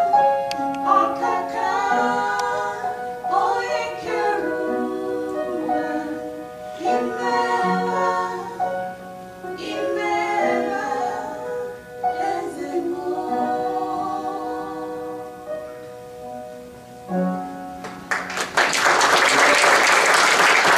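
Two women singing the closing lines of a worship song together, with held notes and instrumental accompaniment. The song ends about 17 seconds in, and the congregation breaks into applause about a second later.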